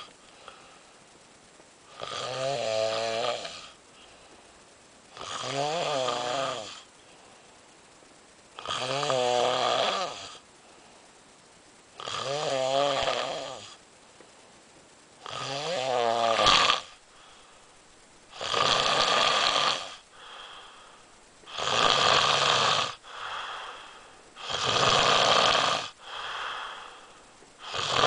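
Snoring in a slow, even rhythm, one long snore about every three seconds. The earlier snores have a pitch that rises and falls, while the later ones turn rasping, with a softer breath between each.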